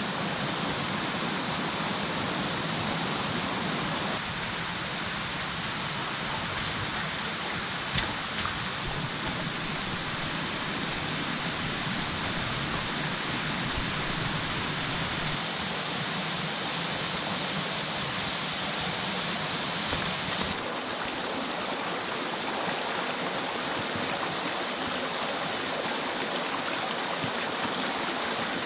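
Steady rush of a shallow, rocky forest stream running over stones.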